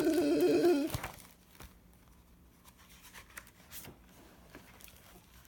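A person's voice holds a long, wavering sound for about the first second, then stops. After that there are faint clicks and rustles of a paper book being handled.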